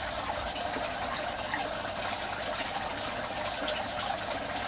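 Water pouring from a return pipe and spraying from a valve into an aquaponics fish tank, splashing steadily onto the water surface.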